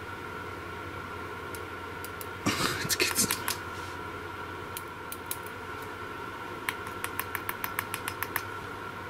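Crocodile-clip leads being held and worked against a car battery terminal while a home-built circuit is tested. There is a short spell of crackling about two and a half seconds in. From about two-thirds of the way through comes quick, evenly spaced ticking, about five a second. A steady electrical hum with a high whine runs underneath.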